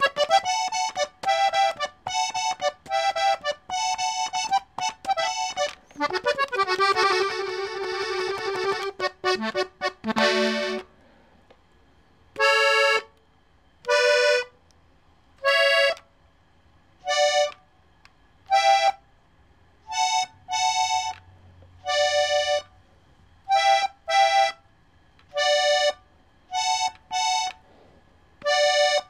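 Hohner diatonic button accordion tuned in G, treble side playing a melody: a run of quick notes, then a few held notes. From about halfway the notes come slowly, singly or in pairs, with short pauses between.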